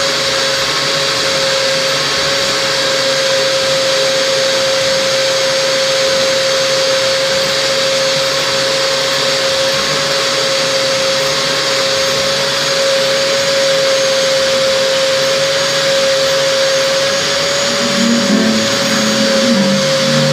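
Vacuum cleaner running steadily with an even motor whine, being used on a dog's coat to suck out fleas.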